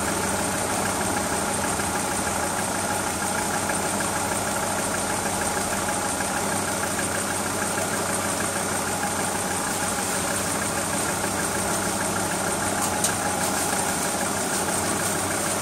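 A 1999 VW Transporter's 2.5-litre petrol engine idling steadily with its 01P automatic transmission in park, kept running so the transmission fluid level can be checked warm. A single light click about thirteen seconds in.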